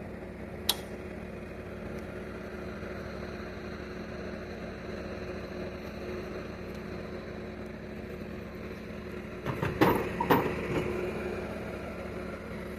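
Vehicle engine idling steadily, with one sharp click about a second in and a few knocks and clanks about ten seconds in.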